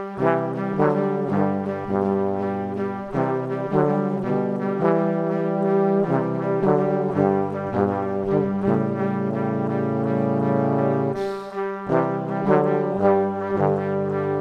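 Background music: a brass quartet of trumpets and trombones playing a piece of changing chords, with a low line coming in at the start and a long held chord about halfway through.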